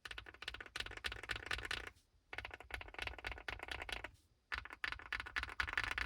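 Fast typing on a Sugar65 mechanical keyboard with lubed KTT Kang White linear switches, foam and tape mods, and PBT keycaps, giving a creamy sound. The typing comes in three bursts with short pauses between them.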